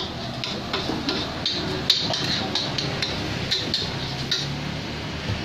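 Metal spatula scraping and clanking against a wok as fried rice (nasi goreng mawut) is stir-fried, in quick irregular strokes.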